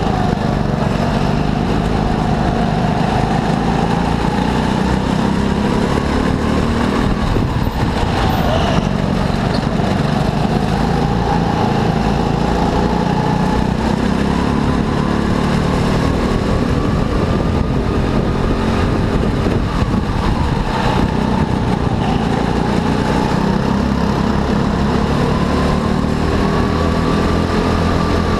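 Go-kart engine running hard through a race, its pitch rising and falling every few seconds as the kart speeds up and slows down, with a sharper drop and swoop about eight seconds in.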